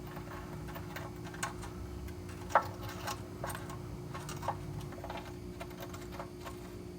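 Scattered light clicks and taps of a hand tool working the oil pan drain plug loose, a few irregularly spaced each second, over a steady low hum.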